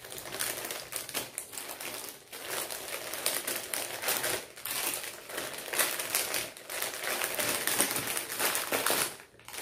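Packaging crinkling and rustling as it is handled and opened, an irregular run of crackles with a few short pauses.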